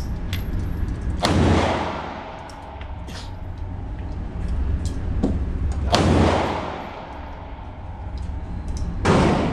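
Three pistol shots, slowly spaced a few seconds apart, each ringing out in a long echo off the walls of an indoor firing range.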